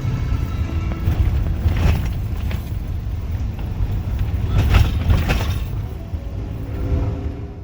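Blizzard wind buffeting the microphone: a heavy low rumble with stronger gusts about two and five seconds in, fading out at the end.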